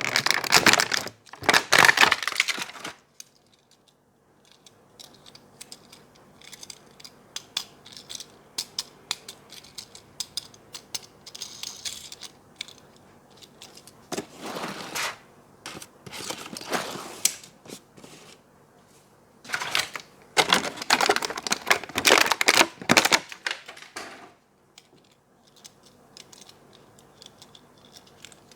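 Toy packaging being handled and opened by hand: bursts of rustling and tearing packaging, with many small clicks and taps between them. The loudest bursts come at the start, about halfway through, and for several seconds near the end.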